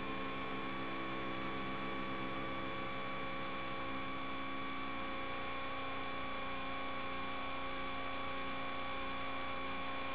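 Steady electrical hum made of many fixed tones that never change pitch: the audio track of the FPV goggles' recording of the drone's video feed.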